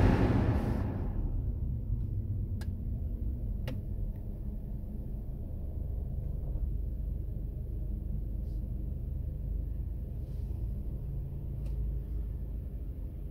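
A loud vehicle noise fades away within the first second, leaving a steady low rumble of road traffic. Two short sharp clicks come a little after two and about three and a half seconds in.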